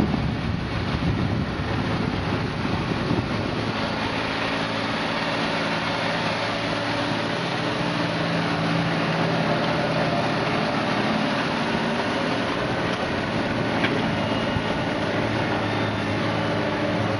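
Valtra tractor's diesel engine running steadily under load as it pulls a stubble cultivator through the soil. The steady engine hum comes through more clearly after about three seconds, once wind on the microphone dies down.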